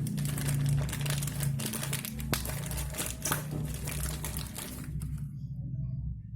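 Rapid crinkling and crackling handling noise that stops about five seconds in, over a steady low hum.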